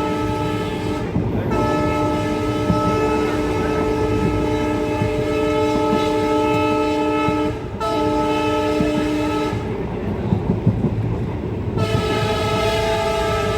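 WDP 4B diesel locomotive's shrill EMD air horn sounding a multi-tone chord in repeated long blasts with brief breaks, one of them about six seconds long. About ten seconds in there is a pause of about two seconds with only the train's running noise and rail clicks, then the horn sounds again.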